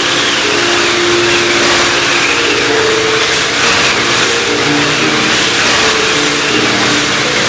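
Circa-1916 Walberg & Auge wind/rain/crash machine cranked by hand, making a storm effect: a dense rushing hiss of wind and rain that swells and fades about once a second. Held musical notes change pitch underneath it.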